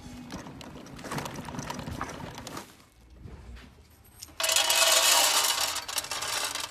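Feed pellets poured from a metal scoop into a sheet-metal cage feeder, a loud dense rattle that starts about four seconds in and lasts about two seconds. Lighter clinks follow as the last pellets settle.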